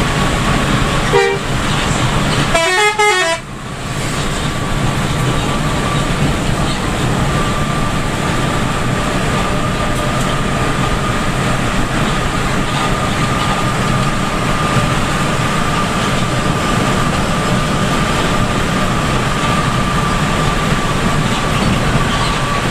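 Steady road and rain noise inside the cab of a bus driving through heavy rain. A horn gives a short toot about a second in, then a longer, wavering blast about three seconds in.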